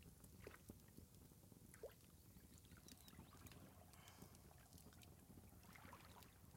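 Near silence: faint water moving in a wooden hot tub, with a few soft short splashes.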